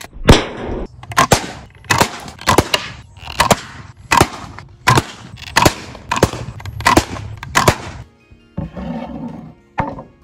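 Wooden slingshot crossbow shooting again and again: a quick run of sharp snaps, many in close pairs, the release followed at once by the shot striking the target, about three shots every two seconds. The shots stop about eight seconds in, followed by a rougher noisy stretch and one last snap.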